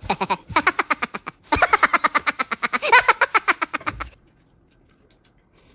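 A rapidly pulsing, pitched sound clip, about eight to ten pulses a second, that stops abruptly about four seconds in. It is cut off sharply in its upper range, as an added sound effect or music would be, and is followed by a few faint clicks.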